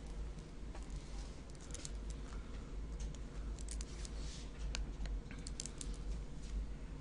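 Stylus tapping and scratching on a tablet screen during handwriting: an irregular scatter of short clicks over a low, steady room hum.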